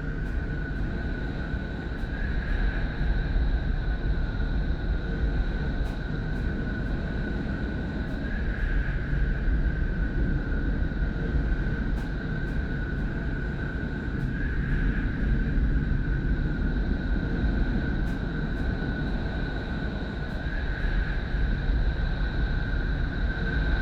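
Space sonification presented as the sound of the planet Neptune: a deep, steady rumbling drone with two high held tones over it, swelling gently about every six seconds, with faint scattered ticks.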